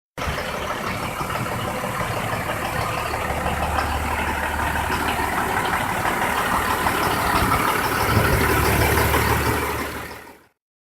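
A yard truck's engine idling steadily, growing a little louder late on, then fading out quickly just before the end.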